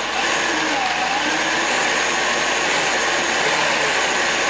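Kyosho Blizzard RC snowcat driven at full throttle: a loud, steady whir from its electric motor, gears and tracks.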